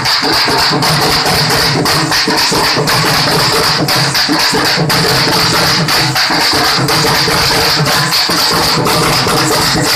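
A troupe of drummers beating large double-headed drums with sticks, a loud, dense and fast continuous rhythm with no pause.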